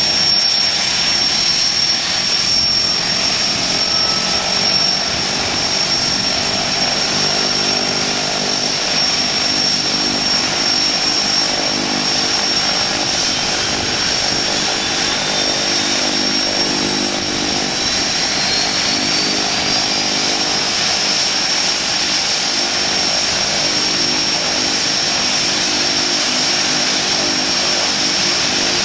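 De Havilland Canada DHC-6 Twin Otter's two Pratt & Whitney Canada PT6A turboprop engines idling after start-up: a steady high turbine whine over the lower drone of the slowly turning propellers.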